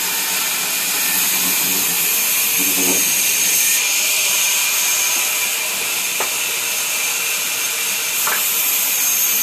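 Sawmill machinery running: a steady hiss with a high whine, broken by a few faint clicks.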